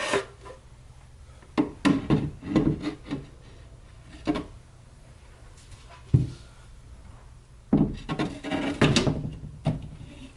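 Loose bookcase shelf boards being slid into the unit and set down on their shelf supports: irregular wooden scraping and knocking in several bursts, with one sharp knock about six seconds in.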